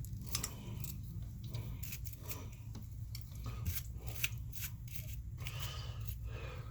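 Irregular scraping and scratching on the bathtub's corroded metal drain mechanism as crud is cleaned off it, over a steady low hum.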